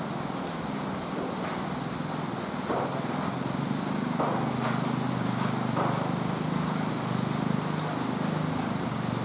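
Electric commuter train running out of the station with a low hum that shifts in pitch, under the steady hiss of heavy rain.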